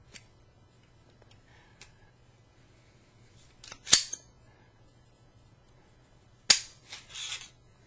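Smith & Wesson M&P 2.0 9mm pistol being handled for takedown: sharp metallic clacks of the slide being worked, a pair about four seconds in and a louder one at about six and a half seconds, followed by a short metallic rattle.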